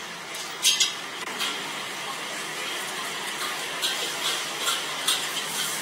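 Outdoor market street ambience: a steady wash of background noise with a few short, sharp clicks and clatters, the loudest just under a second in and a cluster around four to five seconds in.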